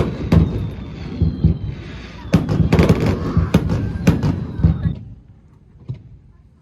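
Aerial fireworks going off in a rapid string of sharp bangs, with a thin high whistle running through the barrage. The bangs die away about five seconds in.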